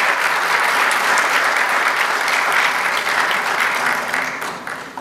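Audience applauding, a dense steady clapping that thins and dies away over the last second or so.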